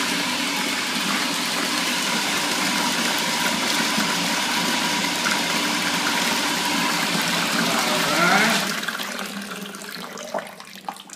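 A stream of water pouring into a partly filled plastic tote reservoir, splashing steadily into the water; the flow dies away near the end.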